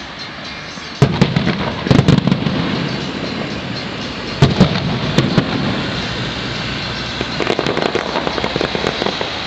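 Aerial firework shells bursting. There are sharp bangs about a second in, again around two seconds, and just after four seconds, then a rapid run of crackling near the end.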